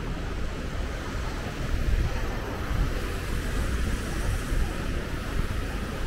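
Steady outdoor background of road traffic, with wind rumbling unevenly on the microphone.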